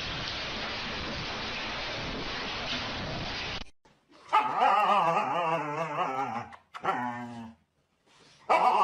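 A steady hiss, then, after a sudden cut, a husky vocalizing: a long whiny howl-like call that wavers up and down in pitch, a shorter call, and another long wavering call starting near the end.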